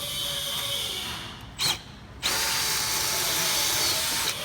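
Power drill with a 1¼-inch bit cutting a hole through a plastic cover from the underside. It gives a short burst, then runs steadily for about two seconds and stops abruptly. Drilling from the bottom is done so the plastic cuts cleanly rather than tearing.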